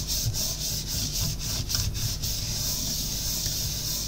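Hands rubbing a sheet of watercolour paper pressed onto crumpled, inked aluminium foil, a scratchy, rustling rub. It comes in quick strokes about four a second, then turns to a smoother, steady rub about halfway through.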